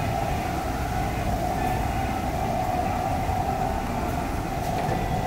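Steady low rumble with a constant hum: the background noise of a ferry's onboard machinery, even throughout.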